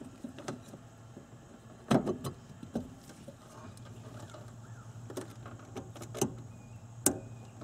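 Scattered light clicks and knocks of plastic and metal parts being handled as the fuel pump assembly and its retaining plate are seated in the fuel tank opening, the sharpest knock about two seconds in, over a low steady hum.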